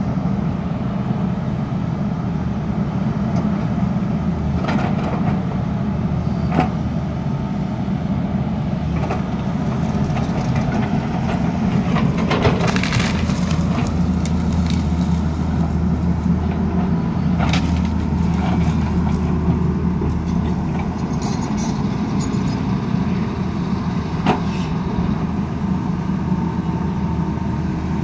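Tata Hitachi hydraulic excavator's diesel engine running steadily under digging load, with scattered sharp knocks and scrapes as the bucket works through soil and rock; the busiest stretch of knocks comes about halfway through.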